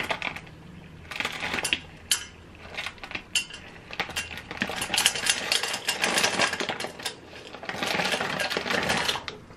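Small shijimi clams clattering and rattling against each other and a pot as they are tipped in, in several bursts of dense clicking, the longest in the second half.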